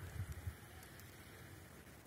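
Falling wet snow: a faint, steady patter with scattered light ticks on leaves and branches. A brief low rumble in the first half second.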